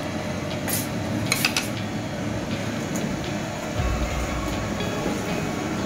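Steady rumbling background noise at a food stall, with a few light clinks of plates and utensils about a second in and a short low thump near four seconds in.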